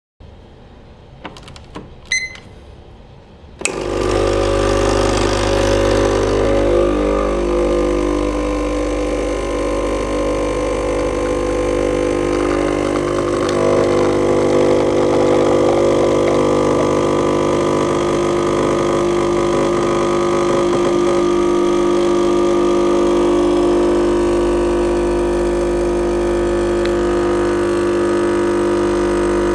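A short electronic beep about two seconds in as a digital timer is started, then a little over a second later the espresso machine's pump starts and runs with a steady hum while a double espresso is extracted.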